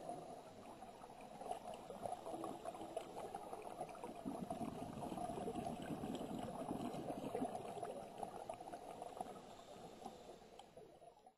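Underwater sound on a reef: a scuba diver's exhaled bubbles gurgling, with dense fine crackling throughout. The sound cuts off abruptly near the end.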